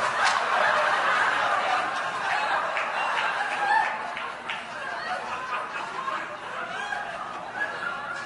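Audience laughing, loudest at the start and dying down over several seconds.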